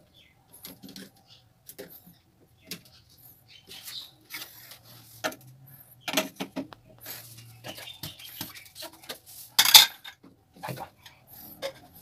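Plastic sink-drain P-trap parts being handled by hand: a slip nut is tightened and a loose plastic elbow is picked up and moved, giving irregular clicks, scrapes and knocks. The loudest knock comes near the end.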